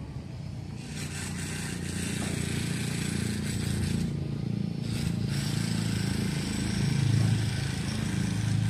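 Heavy truck's diesel engine running, getting louder toward about seven seconds in, with a steady hiss over it that breaks off briefly twice.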